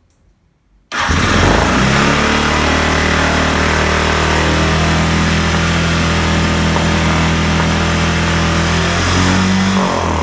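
2006 Arctic Cat 500 ATV engine coming in suddenly about a second in and running steadily at a fast idle, revs edging up slightly near the end. It runs on a new carburetor with the carburetor-to-airbox hose still missing.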